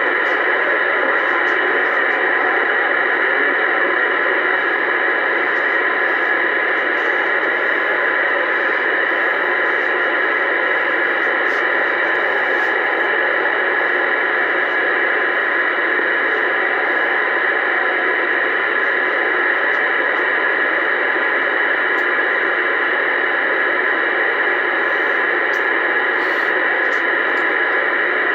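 Uniden Bearcat 980SSB CB radio on AM channel 28 giving a steady, unchanging hiss of static through its speaker.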